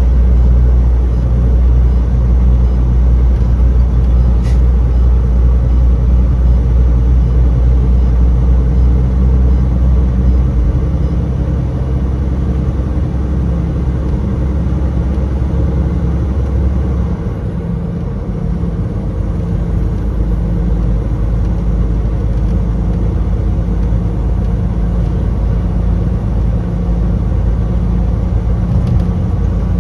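Truck on the highway: steady engine and road drone with a low, even hum. The deepest part of the rumble drops away a little past halfway through.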